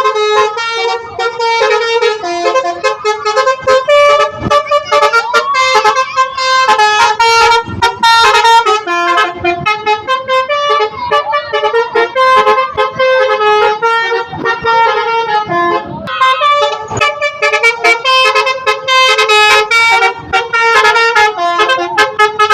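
Indonesian 'telolet' bus horn, a multi-tone horn playing a quick tune of stepping notes, sounding almost without a break.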